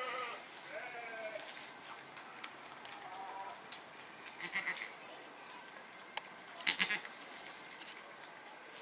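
Goat bleating: a call right at the start, another about a second in, and a fainter one about three seconds in. Two short bursts of rustling, about halfway through and near seven seconds, are the loudest sounds.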